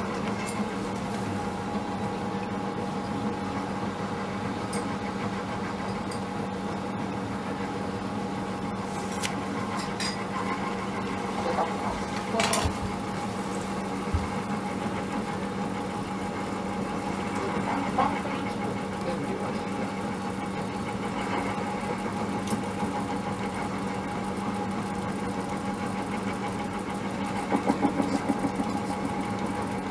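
Electric mochi pounding machine running, its motor giving a steady hum as it kneads and pounds steamed glutinous rice into mochi. A few short knocks come through, the sharpest about twelve seconds in, with a brief rattle near the end.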